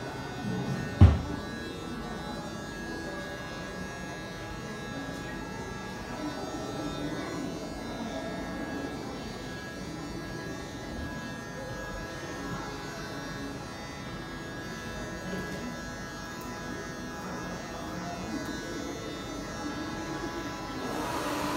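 Electric hair clippers running steadily as they cut hair, with a single sharp knock about a second in.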